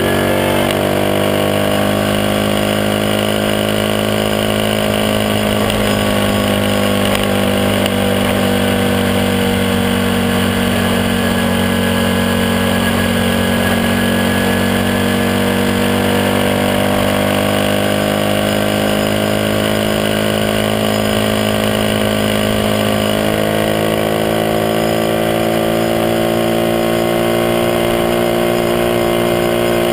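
Monkey mini-bike's small single-cylinder four-stroke engine running at a steady cruise, its note drifting slowly up and down with the throttle.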